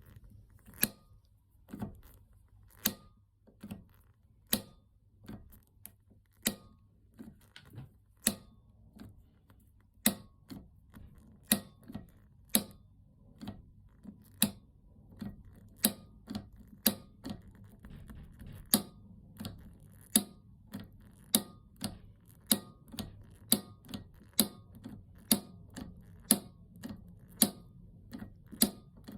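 Repeated sharp clicks, about one a second at uneven spacing, over a low steady hum.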